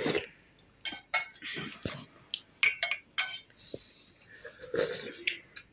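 Spoons and dishes clinking and knocking as people eat, in scattered separate clicks.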